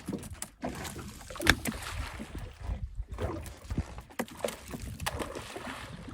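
Water slapping and sloshing against the hull of a small fishing boat, with irregular knocks; the strongest comes about one and a half seconds in.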